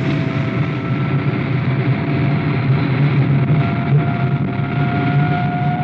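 Supercar's jet engines on full vertical boost, a studio sound effect: a steady rushing roar with a thin whine that creeps slightly up in pitch.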